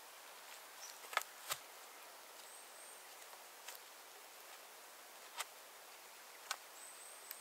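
Cord being pulled and wrapped tight around two crossed wooden poles, making a few separate sharp clicks: two close together about a second in and two more near the end, over a faint hiss.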